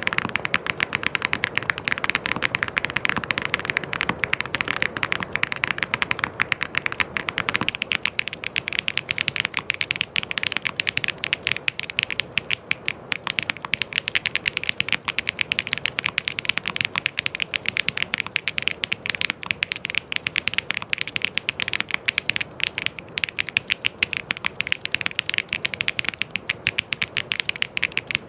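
Fast, continuous typing on a mechanical keyboard: a dense stream of rapid key clicks and clacks. About eight seconds in, the sound turns thinner and brighter.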